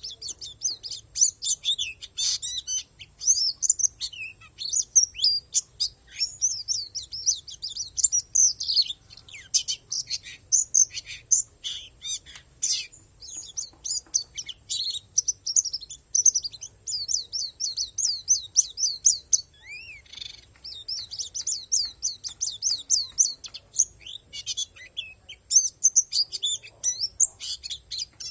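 White-eye (pleci palas Borneo) singing: a fast, continuous run of high, thin chirps and twittering notes.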